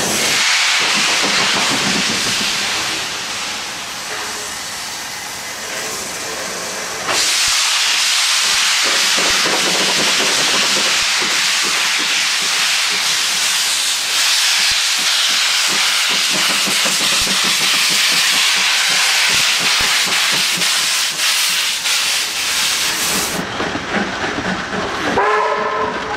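Steam locomotive working a train away with a loud, steady hiss of escaping steam. A short steam whistle sounds near the end.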